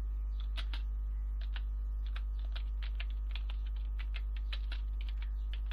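Computer keyboard being typed on: irregular key clicks, about three or four a second, as a name is entered. A steady low electrical hum runs underneath.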